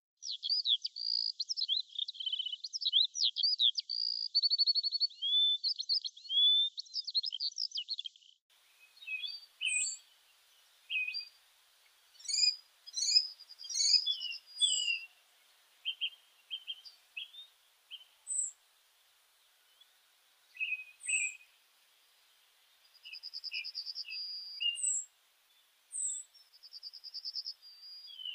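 Birds singing: a rapid, unbroken, high warbling song for about the first eight seconds, then an abrupt change to separate chirps, short whistles and brief trills spaced a second or two apart.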